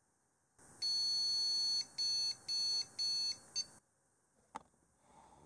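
PC speaker on a 486 VLB mainboard beeping the Award BIOS POST code: one long beep, then three short beeps, which sounds like a graphics card error. A faint click follows about a second later.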